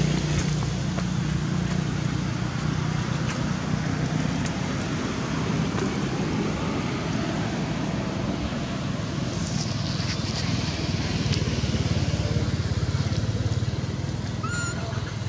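Steady low hum of a running vehicle engine under outdoor background noise. A short high squeak comes near the end.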